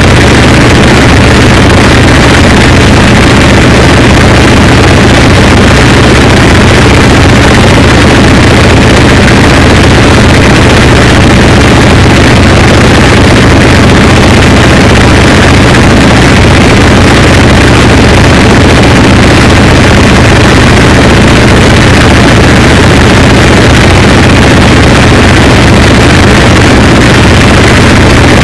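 A loud, unchanging wall of noise with a steady low hum underneath, with no rhythm, breaks or changes: harsh noise wall music.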